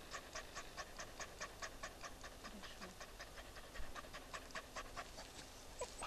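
Cocker spaniel panting quickly, about five short breaths a second.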